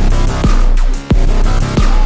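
Background music: an electronic dubstep-style track with a heavy bass and a regular beat, breaking off briefly about halfway through.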